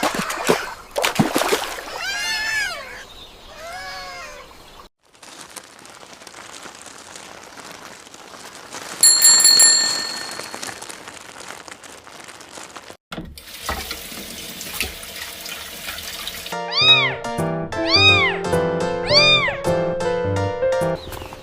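Cat meowing several times, then a stretch of steady hiss with a brief bright chime, then background music with more meows over it.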